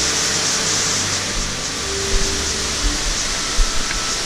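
Steady rush of a stream cascading over rock, with low bumps coming in from about a second and a half in.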